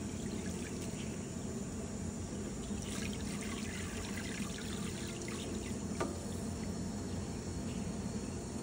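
Garden hose spray nozzle running water into a stainless steel bowl sitting in shallow pool water, with a single small click about six seconds in.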